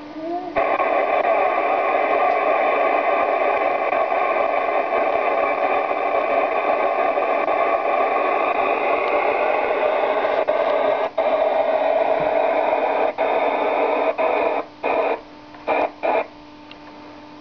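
FM receiver static from an amateur radio transceiver's speaker: a steady hiss with no usable signal as the ISS downlink fades. It breaks off briefly twice, then cuts on and off several times near the end as the squelch closes.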